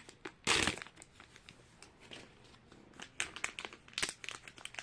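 Small plastic Mini Brands mystery bag being torn open and handled, crinkling. There is one short, loud rustle about half a second in, then scattered small crinkles and clicks.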